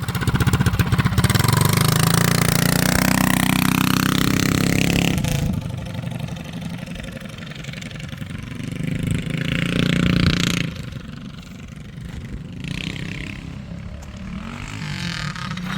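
Small gas engine on a home-built Yerf-Dog go-kart revving up as the kart pulls away, its pitch climbing for about five seconds, then dropping. It revs up again around the ten-second mark, then falls back to lower running: the drive chain has popped off the torque converter.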